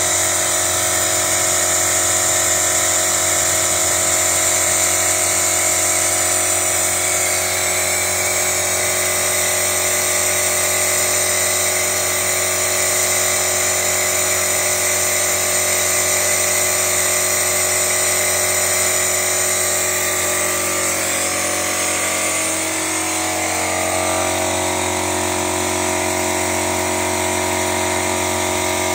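Small electric air compressor running with a steady whine. Its pitch shifts slightly about twenty seconds in.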